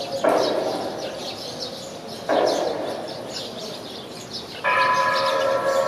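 Two sudden crashing strikes about two seconds apart, each ringing down, typical of a gong or cymbals in temple-festival percussion. Near the end a held, horn-like tone with several pitches starts up. High bird-like chirps sound above it all.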